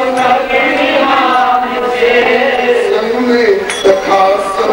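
A man singing a devotional Hindi bhajan in long, held melodic lines over musical accompaniment, with a few sharp percussion strokes near the end.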